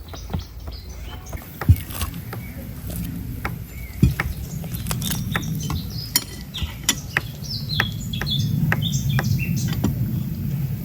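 Small birds chirping in short bursts, with scattered sharp clicks and knocks like utensils on dishes, over a low background rumble.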